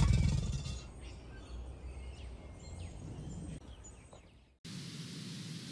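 The low, lawnmower-like rumble of male American alligators bellowing fades out within the first second, leaving faint bird chirps. Near the end the sound cuts abruptly to a steady hiss.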